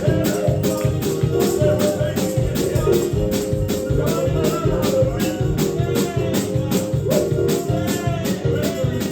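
Live gospel praise-and-worship music: a fast, steady percussion beat under held chords, with voices singing.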